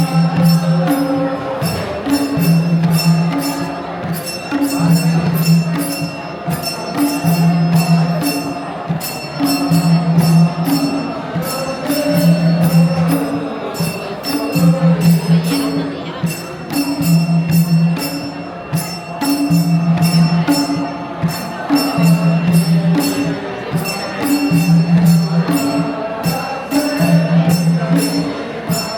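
Nepali folk dance music: a low pitched drum beat repeating in a steady cycle, with rapid metallic jingling on top.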